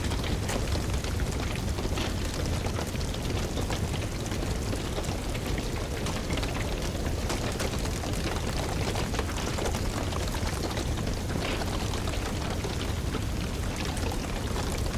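Wood fire crackling, with frequent small sharp pops and snaps over a steady low rumble and hiss.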